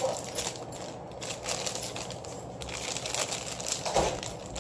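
Small clear plastic parts bag crinkling and crackling as hands work it open, with a sharper knock about four seconds in.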